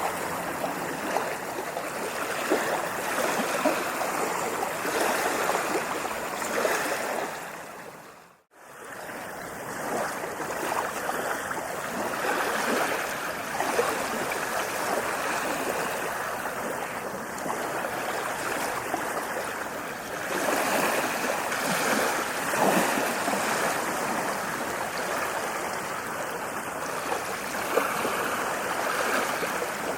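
Ocean waves breaking and washing up a beach: steady surf that swells and ebbs. About eight seconds in, it fades out briefly to near silence and then returns.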